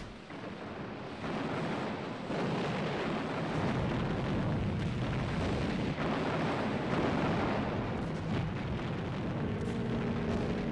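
Warship naval guns firing in a sustained bombardment, a dense continuous rumble of blasts and shell explosions with no gap between shots.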